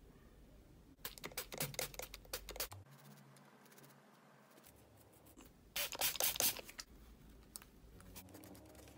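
Small brush scrubbing the parts of a disassembled rotary potentiometer while it is cleaned. The rapid scratchy strokes come in two bursts: a longer one about a second in and a shorter one past the middle.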